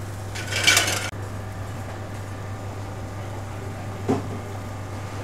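Steady low hum of a commercial kitchen, with a short hiss about half a second in and a faint brief knock around four seconds in.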